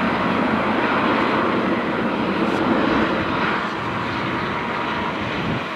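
Airbus EC130T2 helicopter running on the ground: a steady whine from its Arriel 2D turboshaft over the noise of the main rotor and fenestron tail rotor. It eases slightly about four seconds in.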